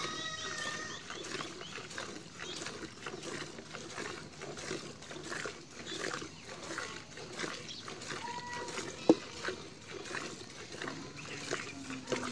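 Milk squirting in quick, repeated streams into a steel bucket as a cow is milked by hand, with a single sharp knock about nine seconds in.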